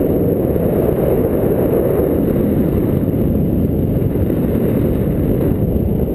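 Wind buffeting the microphone of a camera worn by a paraglider pilot in flight: a steady, low rushing noise.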